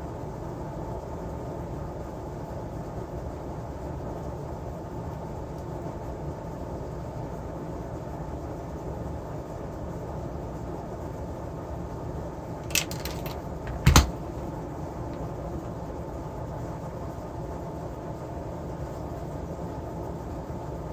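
Steady low hum with a faint high whine at a workbench during battery-pack soldering. A few light clicks come near the middle, then one sharp knock about fourteen seconds in.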